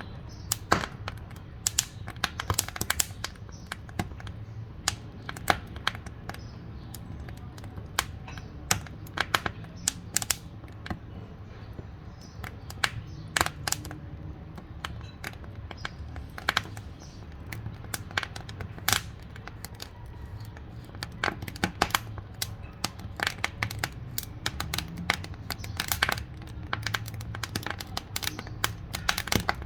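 Wood fire crackling in a wood-burning cookstove: irregular sharp pops and snaps, several a second, over a steady low rumble.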